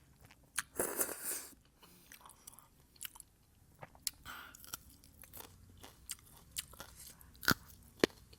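Close-miked eating of thukpa noodle soup: a short loud slurp about a second in, then wet chewing with many small mouth clicks and smacks.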